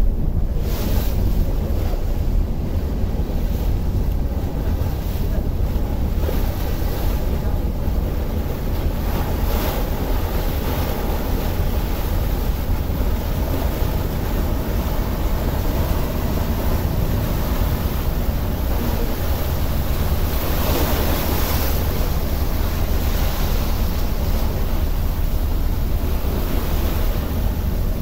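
Wind buffeting the microphone and water washing past the hull of a Star Ferry under way, over a steady low rumble. The wash and wind swell louder twice, about ten and about twenty-one seconds in.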